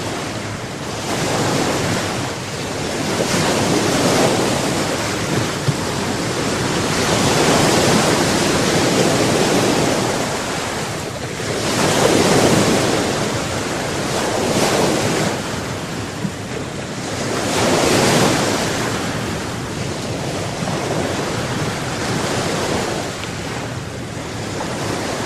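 Black Sea waves breaking and washing on the shore, surging louder and easing off every few seconds, with wind on the microphone.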